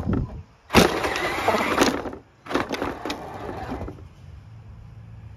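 Radio-controlled monster truck in two short bursts of driving over snow: electric drive running with tyres crunching and clicking through snow and slush. A little before four seconds in it drops to a quieter steady low hum.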